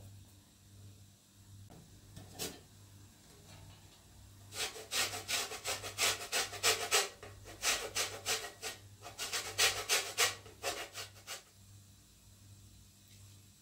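Quick, rasping back-and-forth scraping strokes in two runs of a few seconds each, starting about four and a half seconds in and stopping about eleven and a half seconds in.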